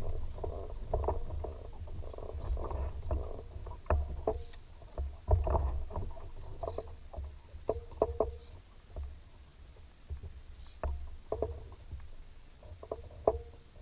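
Kayak being paddled: irregular paddle strokes in the water and knocks of the paddle against the hull, over a low rumble.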